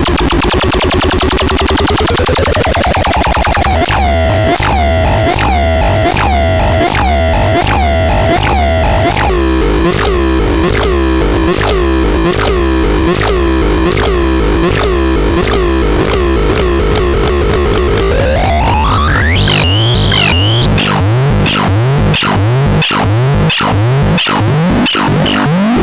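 Harsh electronic synthesizer tones from the LEBKON C220L. The pitch warbles about twice a second over a steady low pulsing drone, and it sweeps upward twice, early on and again about three quarters of the way in.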